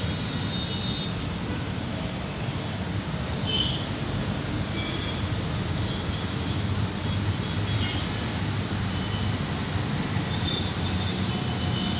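Distant jet airliner's engines, a steady low rumble with hiss, as the aircraft moves along the runway.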